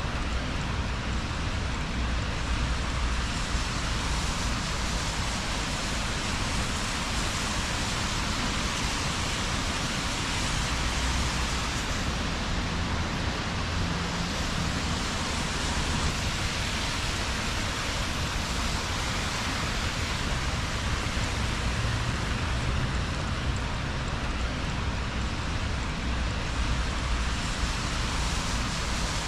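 Steady rain hiss on a wet city street, with a low rumble underneath.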